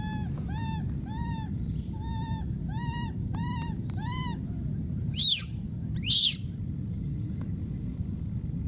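Baby macaque calling: a run of short, arched coo calls, about two a second. These are followed by two loud, high-pitched screams about a second apart. A steady low background rush runs underneath.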